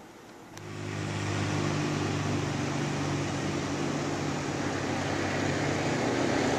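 A vehicle engine running steadily, a low hum over an even rushing noise, which comes in suddenly about half a second in.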